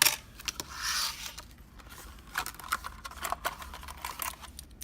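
Handling and opening plastic retail packaging: a swish and scrapes about half a second in, then a run of sharp clicks and small rustles.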